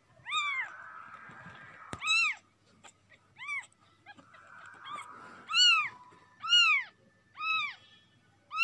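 Tiny newborn kitten mewing over and over, short high cries that rise and fall in pitch, about one a second and louder in the second half. The kitten is crying to get away and back to its place.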